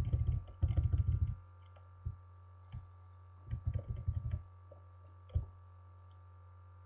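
Computer keyboard keys being pressed: a quick run of keystrokes at the start, then scattered single taps and another short run about halfway through, as the cursor is stepped down through a file in the vi text editor.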